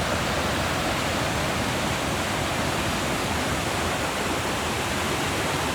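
River rapids rushing steadily.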